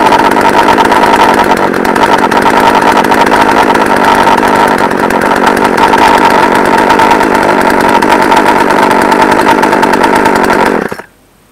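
Poulan Pro 42cc two-stroke chainsaw engine running steadily without cutting, then stopping abruptly near the end. After a hard cold start it keeps wanting to stall even with the choke partly on, which the owner puts down to a fuel mix too rich in oil.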